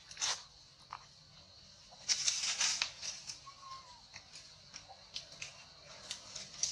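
Close crackling and rustling of dry leaf litter and food being handled and bitten as macaques shift about on the ground, heard as irregular sharp clicks with a denser burst about two seconds in.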